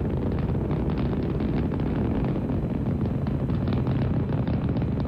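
Saturn V rocket's first-stage engines during ascent: a steady, heavy low rumble with continuous crackling.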